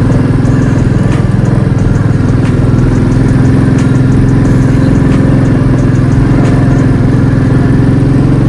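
Motorcycle engine running steadily while riding, a constant low drone with a few faint ticks.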